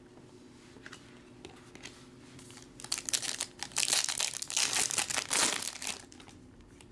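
A 2017 Bowman's Best trading-card pack wrapper being torn open and crinkled by hand. It begins about two and a half seconds in and lasts about three and a half seconds.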